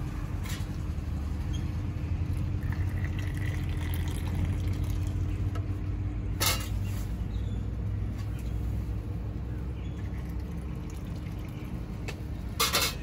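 Steady low rumble of road and engine noise from a moving vehicle, with two sharp knocks, one midway and one near the end.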